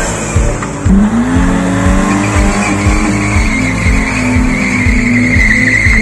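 Car engine revving as a car pulls away hard, with a steady high tyre squeal from wheelspin starting about two and a half seconds in.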